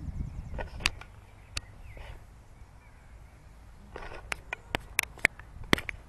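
Handheld camera handling noise. A low rumble comes first, then sharp clicks and taps from fingers on the camera body. The clicks come in a quick run over the last two seconds.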